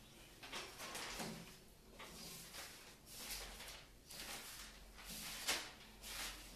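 Faint scraping and rustling from someone moving about a small room, several irregular times, the loudest about five and a half seconds in.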